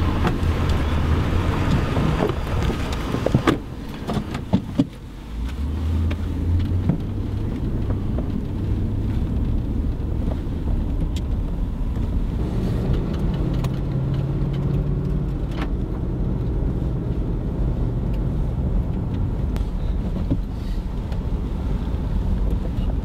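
Pickup truck door shutting with a couple of sharp knocks a few seconds in, then the truck's engine running as it drives off, heard from inside the cab; the engine pitch rises for a while around the middle as it speeds up.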